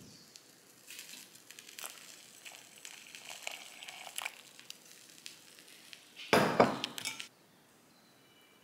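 Kitchen handling sounds while pancake batter is made in a ceramic bowl: scattered light clinks and rustling for a few seconds, then a louder clattering burst lasting about a second, a little past the six-second mark.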